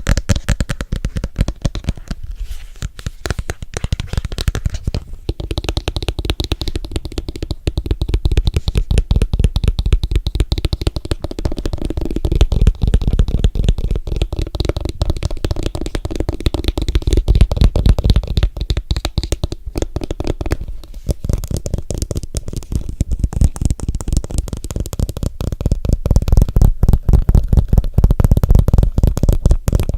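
Fast finger and nail tapping on an object close to the microphone, many taps a second with a deep thump to each, growing louder about twelve seconds in and again near the end.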